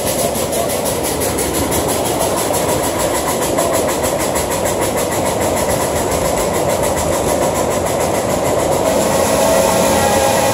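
Ride-on miniature railway freight train rolling past, its boxcars' wheels running over the track with a fast, even clicking of about five clicks a second under a steady rumble. The clicking fades near the end.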